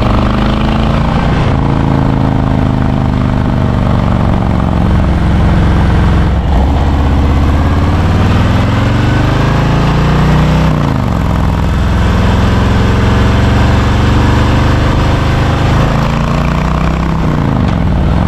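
Harley-Davidson Road Glide Special's V-twin engine running on the road, its pitch climbing as it accelerates and dropping back at gear shifts about six and eleven seconds in, then falling away near the end as it slows. A steady rush of wind and road noise runs under it.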